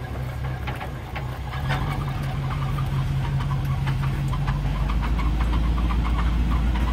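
Pickup truck engine running, heard from inside the cab as the truck moves off. It gets louder about a second and a half in, and its note drops and grows heavier about two thirds of the way through.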